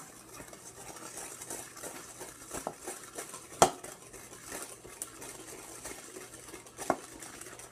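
Spoon stirring a soapy mixture of soap, water and sugar in a bowl, scraping and clicking against the bowl, with a sharp clink about three and a half seconds in and another near the end.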